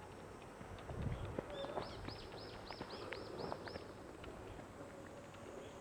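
A bird singing a quick run of about nine identical high, arched notes, about four a second, with a soft low bump about a second in.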